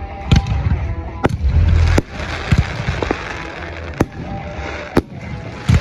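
Aerial fireworks going off in a display: a series of sharp bangs about once a second, with a dense hiss between them.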